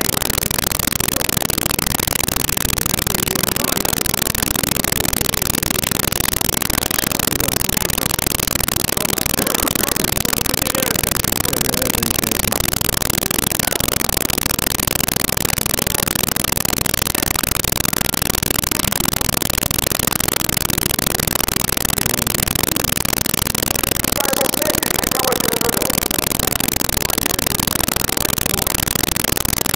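Loud, steady hiss-like noise with no clear shape, masking everything else: the recording's sound is of poor quality. Faint voices show through only briefly, about a third of the way in and again near the end.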